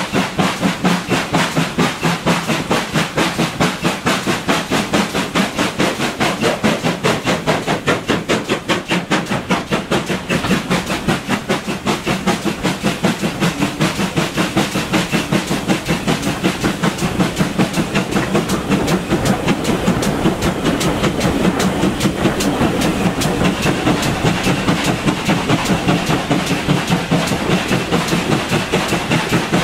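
GWR 4200 Class 2-8-0T steam tank locomotive working hard up a steep gradient, its exhaust beats coming in a fast, even rhythm over wheel and rail noise, heard close up from the coach behind it.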